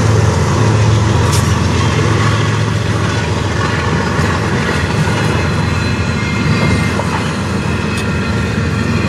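Intermodal freight cars of a CN train rolling past at slower than normal speed, a steady low rumble with faint clicks, heard from inside a vehicle with strong wind noise.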